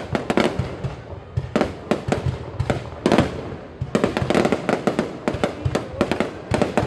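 Aerial fireworks going off in rapid, irregular volleys of sharp bangs and crackles, with echoing tails. The bursts come thickest about a second and a half in, around three seconds, and from four seconds on.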